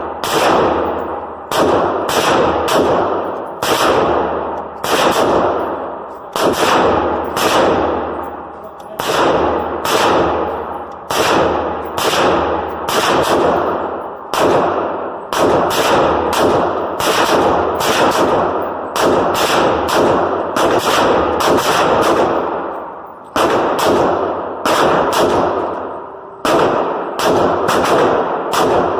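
Rifle fired repeatedly in semi-automatic, about one to two shots a second with a few short pauses, each shot followed by a ringing echo.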